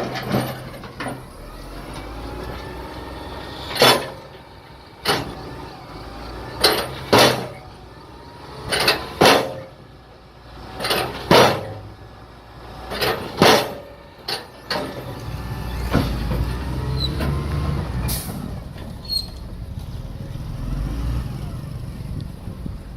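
Heavy road-paving machinery with diesel engines rumbling low, louder for several seconds from about two-thirds in. Repeated short, sharp bursts, many in pairs, are heard throughout.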